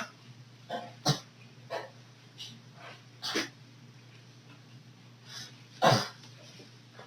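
A series of short, separate coughs and hacks, about seven spread over several seconds, the loudest near the end: a coughing fit brought on by rough play.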